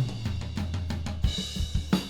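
Recorded acoustic drum kit playing. A tom fill ends on a low tom ringing down in pitch, and after about a second the kick, snare and cymbals take up a steady beat.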